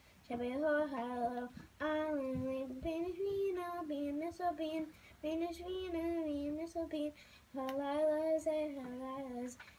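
A young girl singing alone: a slow melody in phrases of one to two seconds, with short breaks for breath between them.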